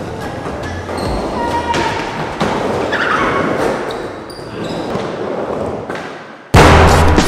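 Skateboards rolling and knocking on plywood ramps in a large hall, with scattered thuds of wheels and boards. Loud music with a beat cuts in suddenly near the end.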